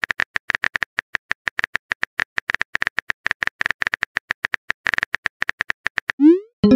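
Rapid clicking of a simulated phone keyboard typing sound effect, many clicks a second. Near the end it is cut off by a short rising pop as the message sends.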